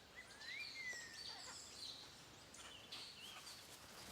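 Faint bird calls over quiet outdoor ambience: short high chirps and a whistled note that rises and then slowly falls in the first second or so.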